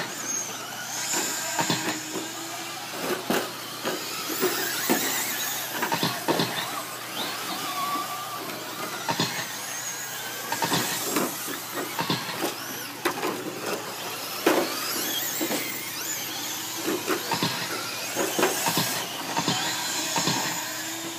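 Several electric radio-controlled short course trucks racing on a dirt track, their motors whining and rising and falling in pitch as they speed up and slow for the corners, with scattered sharp clicks and knocks.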